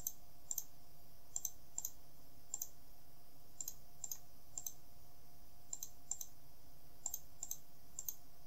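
Computer mouse and keyboard clicks: short, sharp clicks, mostly in quick pairs, coming about once or twice a second.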